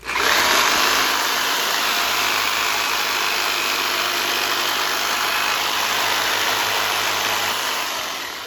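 A power tool's motor switched on abruptly and running steadily with a loud hiss, winding down near the end.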